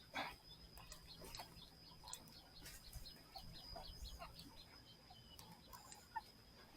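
Near silence with faint outdoor animal chirps: a series of quick, short chirps a few times a second over a steady high-pitched whine. There is a soft tap just after the start.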